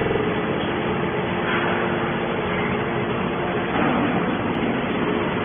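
Small hydraulic scrap baler running: a steady mechanical noise from its motor and hydraulic pump, with a faint hum underneath.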